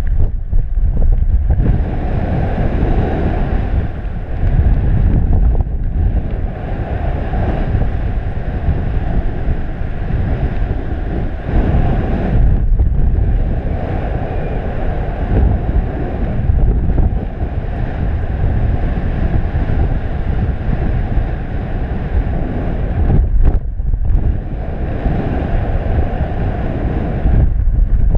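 Airflow from paragliding flight rushing over the camera microphone as steady wind noise. It swells and eases in gusts, with a few brief lulls.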